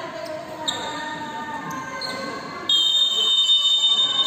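Referee's whistle blown in one long, shrill blast about two-thirds of the way through, signalling the restart for a set-piece kick in futsal, over background voices.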